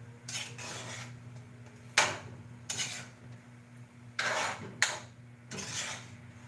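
A metal spatula scraping and stirring mushrooms and fish in a metal wok: a series of short scrapes about every second, with two sharper clinks of spatula on the pan.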